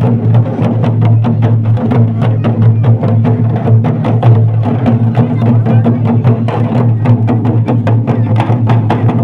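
Drums played live for dancing, with many quick, even strokes and no break, over a steady low drone.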